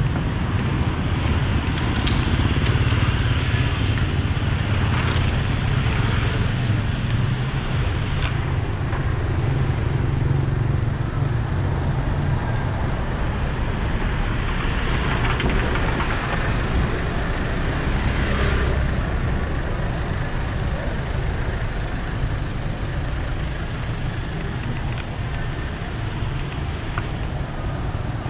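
City street traffic: a steady hum of engines and tyres, with several vehicles passing close by.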